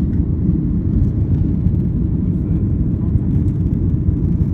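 Jet airliner cabin noise heard from inside the passenger cabin during the climb after takeoff: a steady, low, even rumble of engines and airflow.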